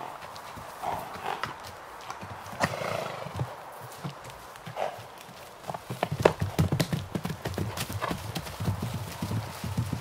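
Two horses breaking into a canter on grass and dirt, hooves thudding rapidly from about six seconds in. A few short horse calls come in the first few seconds.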